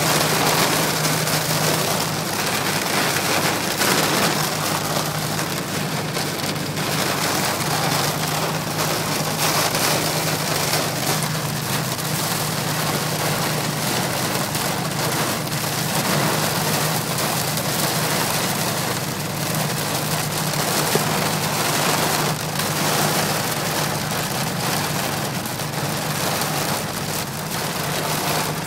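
Heavy rain beating on the windshield and fuselage of a Cessna 402, heard from inside the cockpit as a loud, steady hiss, with a low steady hum underneath.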